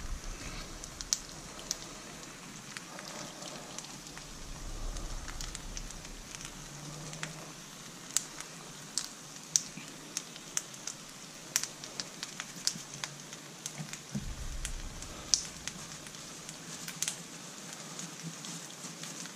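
Egg, chili paste and onion on a rice-paper base sizzling and crackling in a frying pan, a faint steady hiss with scattered sharp pops and spits, most frequent in the middle.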